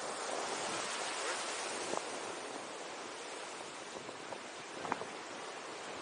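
Ocean waves breaking on a rocky shore: a steady wash of surf, with a faint click about two seconds in and another near five seconds.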